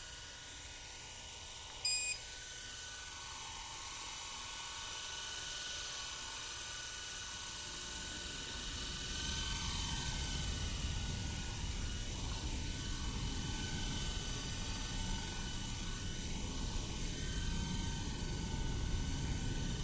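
Esky Honey Bee V2 fixed-pitch electric RC helicopter hovering: a steady high whine from its motor and gears with the whir of the rotor, slowly growing louder. A short high beep comes about two seconds in, and a low rumble joins from about eight seconds in.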